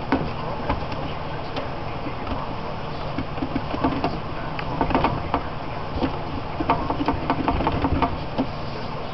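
Getrag transmission case half being jiggled and lifted off the gearbox: a run of light metal clicks and knocks, mostly in the second half, over a steady low hum.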